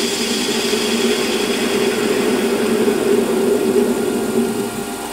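Metal lathe running with the lathe tool taking a light scratch pass across the face of a model-engine cylinder end cap. A steady machine hum mixes with cutting noise, easing a little near the end.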